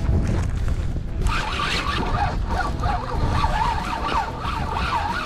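Wind buffeting the microphone, a steady low rumble. From about a second in, a wavering pitched sound runs over it until near the end.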